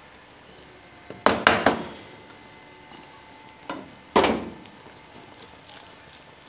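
Wooden spatula stirring thick macaroni and cheese in a pan, knocking and scraping against the pan: a quick cluster of knocks about a second in, and another loud knock past four seconds.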